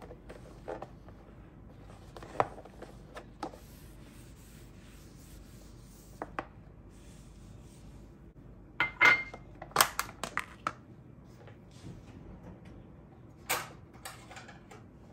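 Scattered clicks and knocks of a clip-lid plastic food container being handled on a marble worktop, its latches unclipped and the lid lifted off and set down, with a small glass bowl set down beside it. The loudest cluster of knocks comes about nine to eleven seconds in, with another sharp knock near the end.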